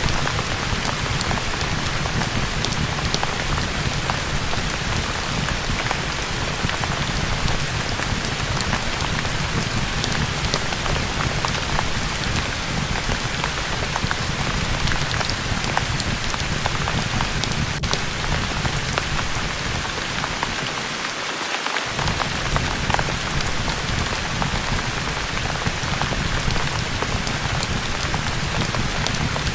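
Steady heavy rain falling, an even hiss dotted with many small sharp ticks of drops. The low rumble drops out for about a second near the end.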